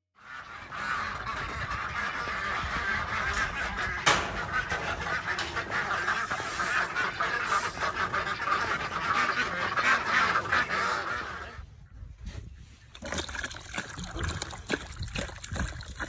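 A flock of domestic ducks quacking together in a loud, continuous chatter. It dies down about twelve seconds in, leaving scattered knocks and clicks.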